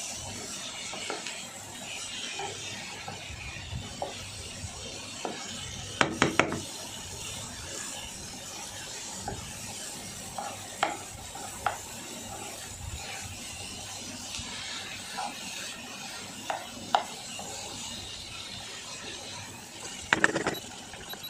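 Chicken mince being stirred and mixed in a pan over a steady hiss of frying. The utensil scrapes and clinks against the pan, with a louder cluster of knocks about six seconds in and again near the end.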